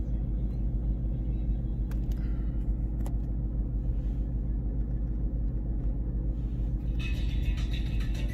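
Ford Mustang GT's V8 idling, a steady low rumble heard from inside the cabin, with two light clicks about two and three seconds in. About seven seconds in, a video ad starts playing through the car's speakers.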